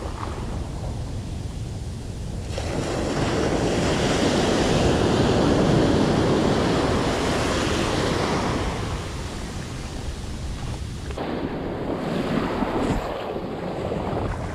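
Ocean surf washing up the beach, swelling to its loudest a few seconds in and then ebbing away, with a smaller surge near the end.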